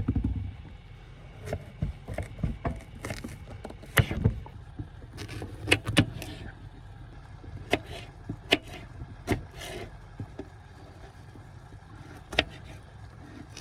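Knife cutting zucchini on a cutting board: scattered sharp knocks, irregularly spaced about a second apart, over a low steady rumble.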